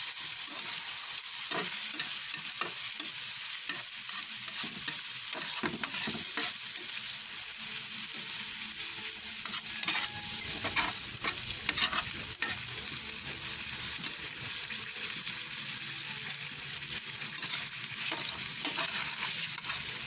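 Ground pork frying in oil in a pan, sizzling steadily, while a spatula stirs it and scrapes and knocks against the pan in spells, first in the opening seconds and again around halfway.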